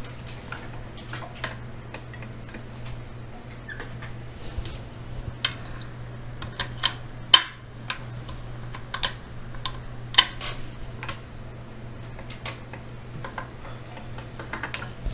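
Hand-cranked pasta machine rolling a sheet of polymer clay through at its thickest setting: irregular clicks, with a few louder clacks, over a steady low hum.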